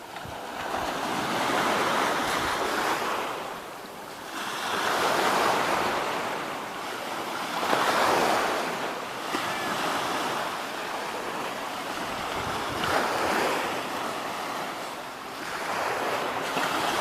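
Sea waves breaking and washing ashore in repeated swells, about one every three seconds.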